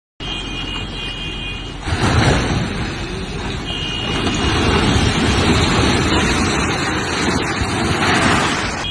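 A horn blows a long blast, then a seven-storey concrete building collapses: a sudden heavy rumble and crash of falling masonry starts about two seconds in and goes on, growing louder midway. The horn blows again partway through the collapse.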